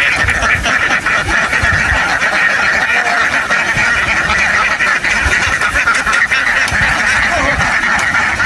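A large flock of ducks quacking all together in a dense, continuous chorus.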